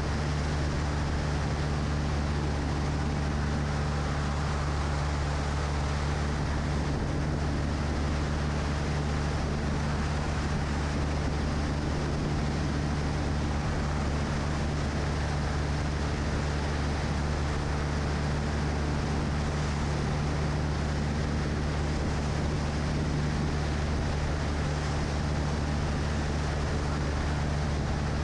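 Cessna 172's piston engine and propeller running steadily in cruise flight: a constant low drone with the rush of airflow over it, heard from a camera under the wing.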